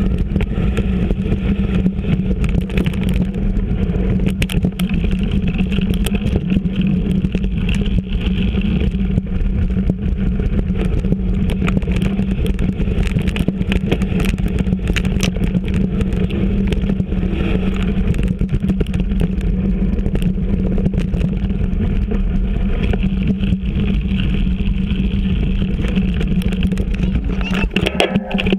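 Mountain bike riding along a rough, leaf-covered dirt trail: a steady loud rumble of tyre and wind noise with a constant low hum, dotted with clicks and rattles as the bike goes over roots and rocks. It drops away suddenly at the very end.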